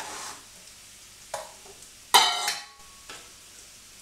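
Sliced mushrooms scraped from a bowl into a frying pan of hot oil and sizzling, with sharp knocks of a spoon against metal; the loudest clatter comes about two seconds in, followed by a brief ring.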